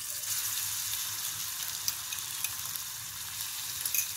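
Green chilli, ginger and garlic paste sizzling in hot oil in a non-stick kadhai: a steady hiss that starts abruptly as the paste drops in, with a few small pops.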